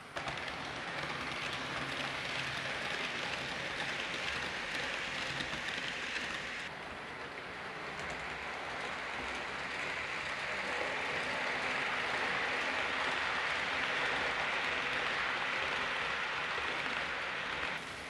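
Hornby OO gauge Class 390 Pendolino model train running along the track: a steady whirring hiss of its motor and wheels on the rails, which shifts abruptly about seven seconds in and drops away near the end.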